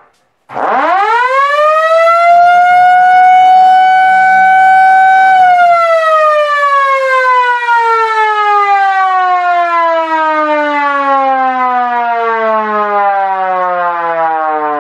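Restored 1940s Sterling Little Giant air raid siren starting up about half a second in, its wail rising quickly and levelling off at a steady pitch, held short of full speed. About five seconds in the power is cut: a lower hum beneath it stops, and the siren winds down in a long, slowly falling wail.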